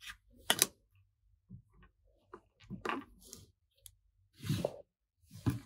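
A plastic action figure being handled and fitted onto a clear plastic display stand: a few light plastic clicks and knocks, spaced apart, with soft handling noise between them.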